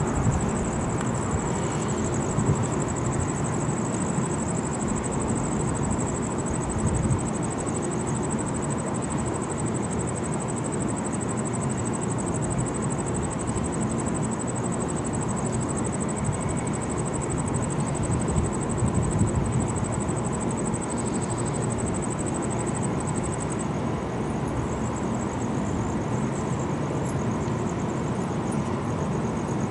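Steady outdoor city background of distant traffic rumble at night, with a constant high-pitched whine over it and a few brief louder swells.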